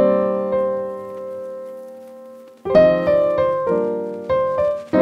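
Piano music: a chord struck and left to fade for over two seconds, then a quick run of struck notes and chords.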